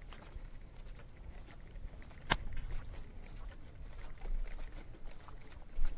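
Low steady rumble of a fishing boat drifting on open water, with a few sharp clicks and knocks, the loudest about two seconds in.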